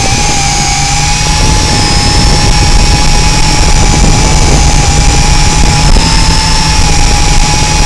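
Tarantula X6 quadcopter's motors and propellers running in flight, a steady high whine that wavers slightly in pitch as the throttle changes, heard close up from on board. A heavy low rumble of strong wind buffets the microphone throughout.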